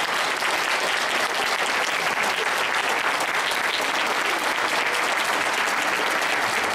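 Applause from a large audience, many hands clapping at once, holding steady throughout.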